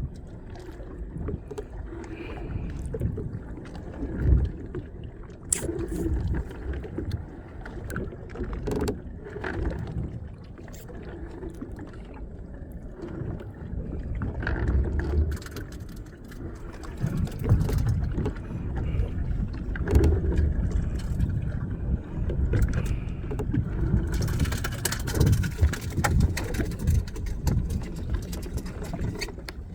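Small boat at sea, with a low rumble of wind and water. Scattered sharp knocks come throughout, and a louder rush of noise about three-quarters of the way through.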